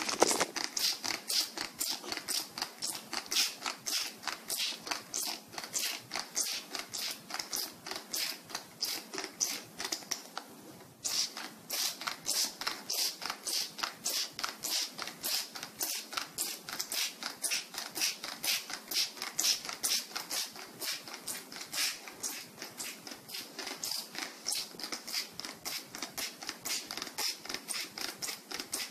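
Plastic trigger spray bottle squeezed over and over, each pull giving a short hiss of water mist, about three to four sprays a second onto a folded paper towel to soak it. The spraying pauses briefly about ten seconds in, then carries on.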